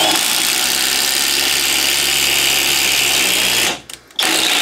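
Flex 24V brushless impact driver at its top speed, boring a half-inch twist bit into a wooden beam. It runs for about three and a half seconds, stops briefly, then starts running again near the end.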